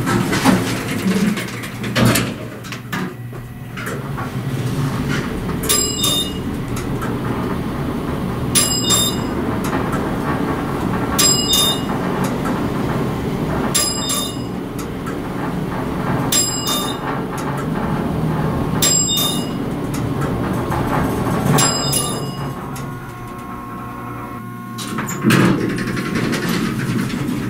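Elevator car travelling up with a steady running hum, its original floor-passing chime dinging once per floor: seven single dings about two and a half seconds apart. There is a knock of the doors shutting about two seconds in, and the doors slide open near the end.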